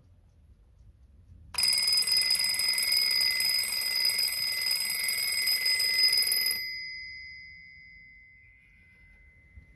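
Antique Seikosha carriage alarm clock's alarm bell ringing in a continuous rapid trill for about five seconds, starting about a second and a half in. The hammer stops suddenly and the bell rings on, fading away.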